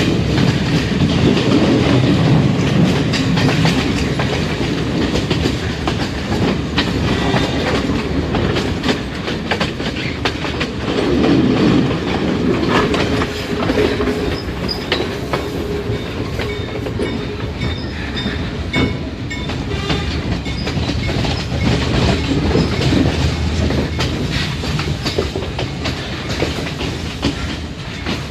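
Passenger train running along the track, heard from on board: a steady rumble with the wheels clicking over rail joints.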